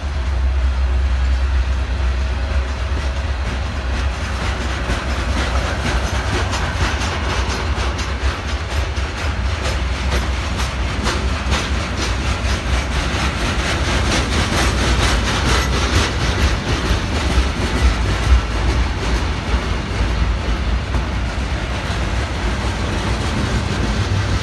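Freight train of loaded TTX flatcars rolling past at close range: a steady low rumble of steel wheels on rail, with wheels clicking over rail joints, the clicks thickest around the middle.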